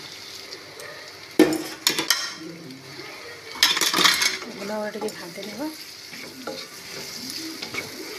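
Wooden spatula stirring and scraping chopped onion, capsicum and freshly added spice powders around a hot kadai, over a light sizzle of frying. Two louder bursts of scraping and knocking come about a second and a half in and around four seconds in.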